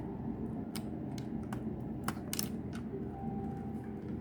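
Small irregular plastic clicks and taps as laptop ribbon-cable connectors are handled and seated into their sockets on the motherboard, over a steady low hum.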